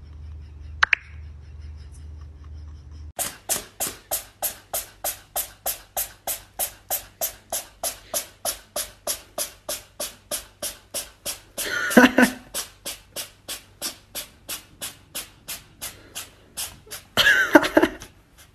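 A steady beatbox-like rhythm of sharp percussive hits, about three a second, with two louder vocal bursts about twelve and seventeen seconds in. It is preceded by a single sharp click about a second in.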